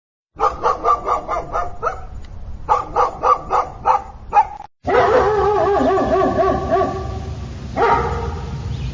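Dog barking in two rapid runs of short yapping barks, about five a second. After a sudden break about halfway through, a long wavering, pitched call sounds over a steady noisy background, with a louder burst near the end.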